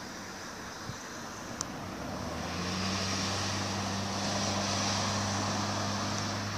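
Car driving past: tyre and engine noise swelling over a few seconds, with a steady low engine hum coming in about two and a half seconds in.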